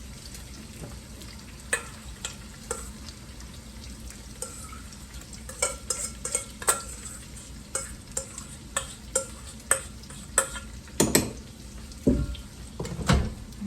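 Ribeye steak burgers sizzling gently in a pan on low heat, with irregular clinks and taps of a utensil against cookware that come more often after the first few seconds.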